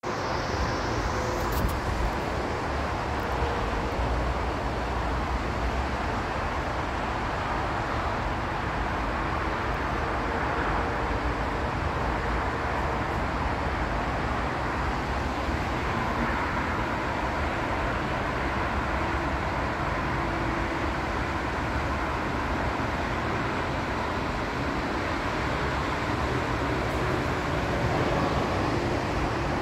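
Steady outdoor background rumble with a broad hiss, much like distant traffic, heaviest in the low end and unchanging throughout.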